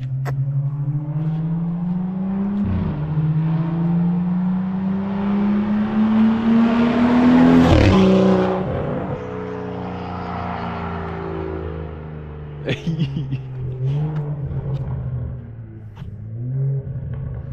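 BMW 335i's N55 turbocharged straight-six, with catless downpipes and a muffler delete, accelerating hard toward and past the roadside. Its note climbs in pitch, breaks at an upshift about three seconds in, and is loudest as it passes about eight seconds in, where the pitch drops. It then fades as the car drives away, with a short cluster of sharp pops about five seconds after the pass.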